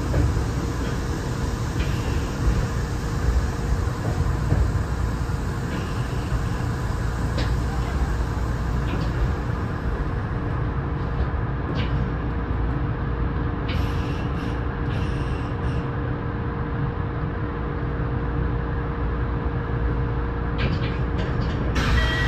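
Electric commuter train (Kintetsu 6820 series) standing at a station, heard from behind the cab: a steady low rumble with a held hum from its onboard equipment, and a few faint clicks.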